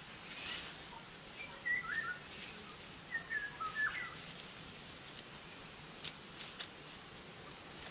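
A songbird gives two short phrases of quick whistled chirps between about one and a half and four seconds in. Soft rustling of soil and leaves being handled by gloved hands sounds underneath.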